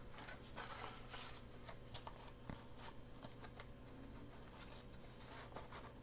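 Faint rustling of paper and cardstock being handled and slid into place, with a few light taps.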